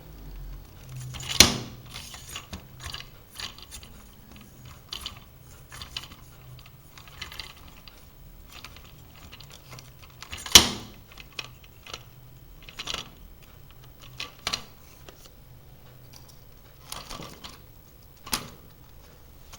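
A Weifeng tripod being handled and adjusted: scattered clicks and rattles of its locks and leg sections, with a sharp snap about a second and a half in and another about halfway through.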